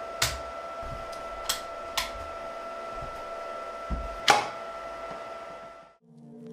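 Creality HALOT ONE resin printer running a print with a steady electrical whine, broken by a few sharp clicks, the loudest about four seconds in. The sound cuts off abruptly about six seconds in.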